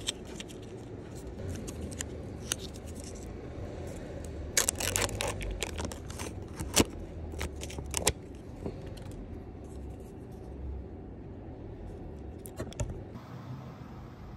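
Plastic packaging of a steamed-egg cup being handled and its clear plastic film lid peeled off: a run of crinkling and crackling with sharp clicks, busiest about four to six seconds in, then a few light clicks near the end, over a low steady hum.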